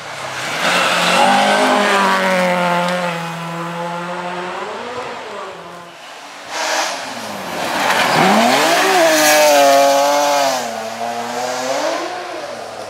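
Rally cars at full throttle on a gravel stage, passing one after the other. The engine note dips and climbs again with gear changes and throttle lifts, and a second car's engine comes in suddenly about six and a half seconds in.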